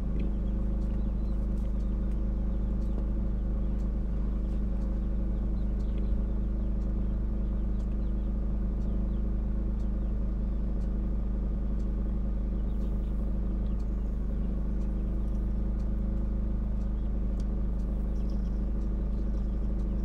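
Steady low hum and drone, with a few faint clicks and a small tap from handling tools on a workbench.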